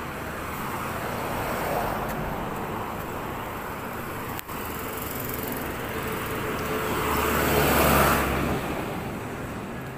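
Road traffic passing close by: vehicles go by one after another, the tyre and engine noise swelling twice and loudest about eight seconds in.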